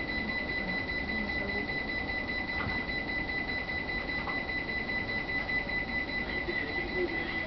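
Steady, high-pitched electronic alarm tone with a fast flutter, sounding without a break inside an E231-series commuter train stopped by an emergency brake application.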